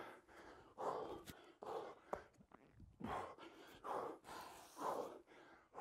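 A man breathing hard and fast during strenuous exercise: heavy, rushing breaths about one a second.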